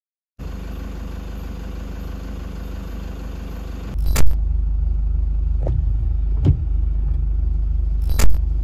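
Toyota Hiace van's engine running slowly, heard from inside the cab as a steady low hum that gets louder about four seconds in. Two sharp knocks come about four seconds apart, with fainter ones between them.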